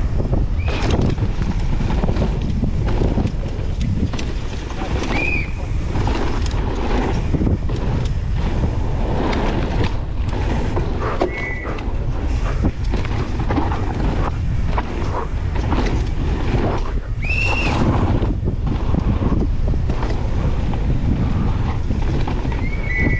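Mountain bike being ridden down a rough downhill track: wind buffeting the microphone over a steady rumble of tyres on dirt and the rattle and knock of the bike over bumps, with about five short high squeals spread through it.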